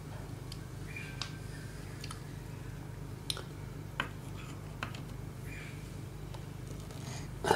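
Screwdriver working at small screws in a projector's metal mechanism: a few light, separate metal clicks and faint scrapes over a steady low hum.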